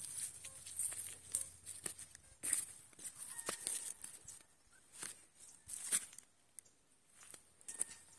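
Irregular scuffing and rustling of footsteps on dry soil and grass, about one to two a second, thinning out near the end. A faint steady hum sounds under the first two seconds.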